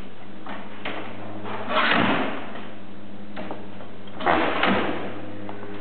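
Clunks and rattles of a folding rollaway trestle table's metal legs and wheel frame being handled, louder about two seconds in and again about four and a half seconds in, over a steady low hum.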